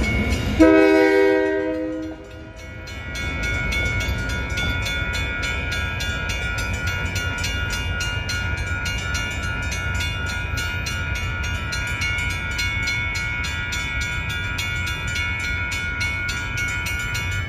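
A diesel locomotive's air horn sounds one short blast about half a second in, then a railroad grade-crossing bell rings steadily with rapid, even strikes over a low rumble.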